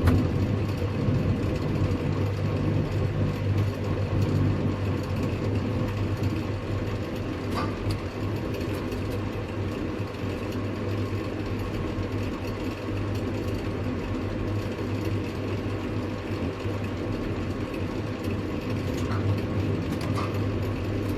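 Steady low hum of running heavy machinery, with a higher tone that drops out about four seconds in and a few faint ticks.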